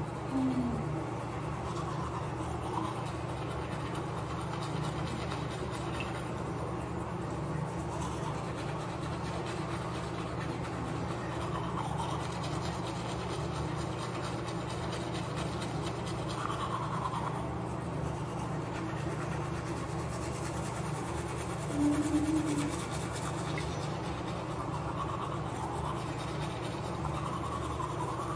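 Manual toothbrush scrubbing teeth, steady and continuous over a constant low background hum. A brief low tone, the loudest moment, comes about three-quarters of the way through.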